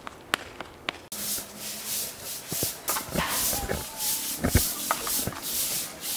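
Several stiff long-handled stick brooms sweeping a concrete yard: repeated overlapping scratchy swishes, about two to three strokes a second, starting about a second in, with a few knocks.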